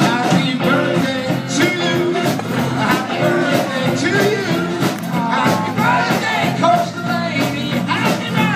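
Live rock band playing with electric guitars and a drum kit, with singing over the top.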